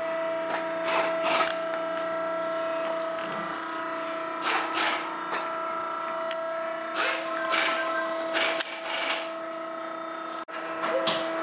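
Workshop sounds: a steady hum at several pitches, with short bursts of a hissing, rasping power tool breaking in about nine times, mostly in pairs.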